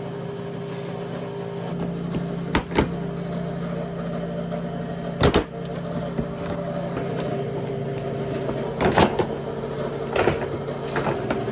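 Plastic body panels on a Can-Am Renegade ATV being pulled and unclipped by hand, giving several sharp knocks and clacks, over a steady low hum.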